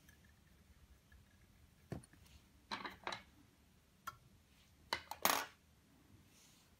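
Small metallic clicks and taps from fly-tying tools being handled at a metal fly-tying vise: about seven sharp ticks in short clusters, one near two seconds in, a pair near three seconds, one near four seconds and three close together near five seconds.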